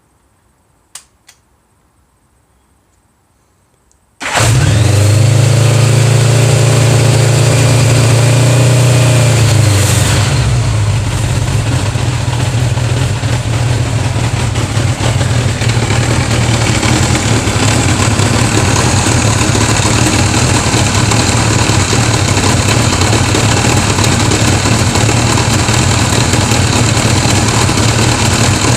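1981 Honda GL1100 Gold Wing's flat-four engine starting about four seconds in, after two faint clicks, running at a raised idle for several seconds and then settling to a steady idle.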